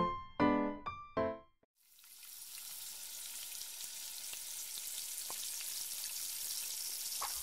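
A few piano notes end about a second and a half in. After a brief silence, a small fish frying in oil in a pan sizzles steadily, fading in, with an occasional pop.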